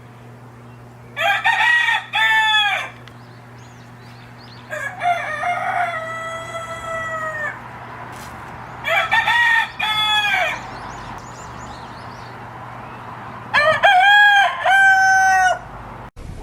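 Rooster crowing: four cock-a-doodle-doo calls a few seconds apart, each a quick run of notes ending in a drawn-out held note, the second with the longest tail. A faint steady hum lies underneath.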